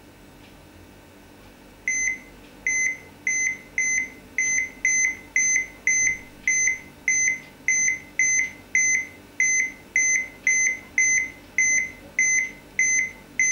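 Cardiograph pulse-reading app on a Toshiba Thrive tablet beeping once for each heartbeat it reads from a fingertip over the camera. The short, high electronic beeps start about two seconds in and repeat evenly a little under twice a second, about 105 a minute, matching the displayed pulse.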